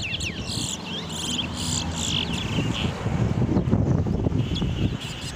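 Caged towa-towa seed finches singing: quick whistled notes that slide up and down, with fast trilled runs in the first half, over a steady low rumble of wind on the microphone.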